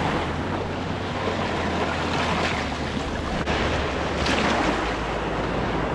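Small ocean waves washing over rocks and up the sand, the surf rushing and fizzing as the foam spreads, swelling a couple of times as each wave comes in.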